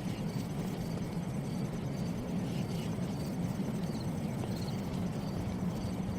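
A steady low rumble with faint, evenly spaced high ticks above it.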